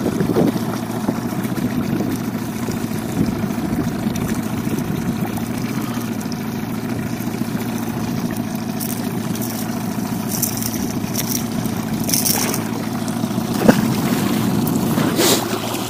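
Outboard motor idling steadily, with a single sharp knock near the end.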